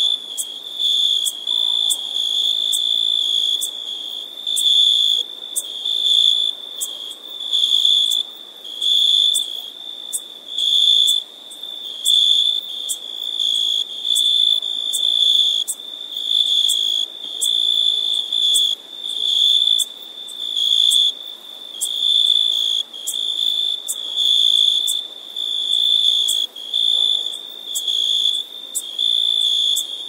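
Cricket chirping: a high, pure trill repeated over and over, about one short burst every second.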